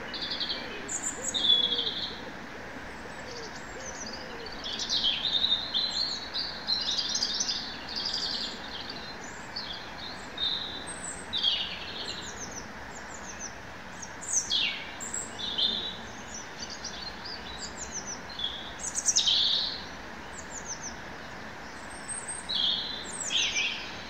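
Songbirds chirping and singing in short, varied phrases of high notes, sweeps and trills, over a steady background hiss.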